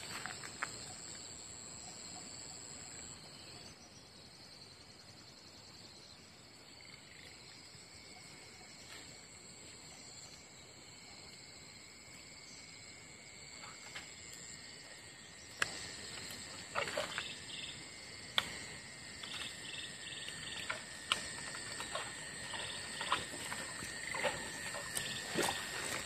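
A chorus of insects shrilling in several steady, high, even tones. Scattered clicks and crackles join from about halfway through and grow busier near the end.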